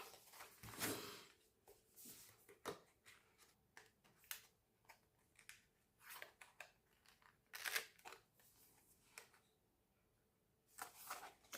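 Faint handling of paper and card: short rustles and light clicks as album inserts and photocards are moved and sorted, with a louder rustle about eight seconds in and another near the end.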